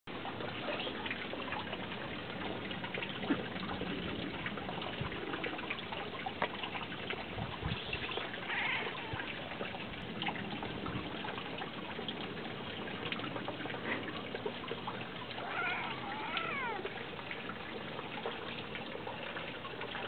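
Maine coon cat chattering at birds, the quick twittering noise cats make at the sight of prey, with one clearer call falling in pitch late on. A steady hiss runs underneath.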